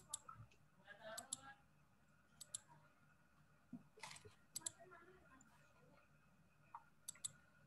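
Computer mouse clicking against near-silent room tone: sharp clicks in quick pairs, about five times, as slides are paged through.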